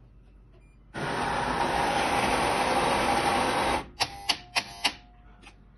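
The burr grinder of a Unicum Nero coffee vending machine runs one grind cycle for about three seconds, flushing grinder-cleaning powder out through the burrs, and stops abruptly. A few sharp clicks and knocks follow.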